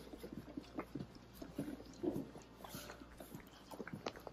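Footsteps of a small group walking on a hard indoor floor, irregular soft clicks and knocks, mixed with rustling close to the microphone.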